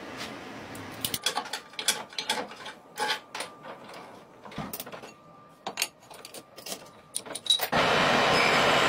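Scattered metallic clanks and clicks as a red hydraulic bottle jack is handled and set inside an aluminium alloy wheel rim. Near the end a metal lathe running cuts in as a steady, loud machine noise.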